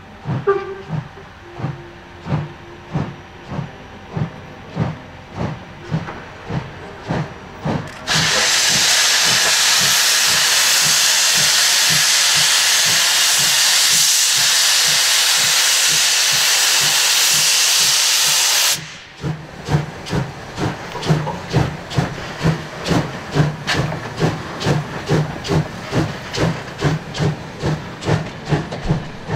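Steam locomotive 35 1097, a two-cylinder DR class 35, pulling away with a train, its exhaust beats coming about twice a second and slowly quickening. For about ten seconds in the middle a loud steady hiss of escaping steam starts and stops abruptly, drowning out the beats. Near the end the coaches rattle over the rail joints.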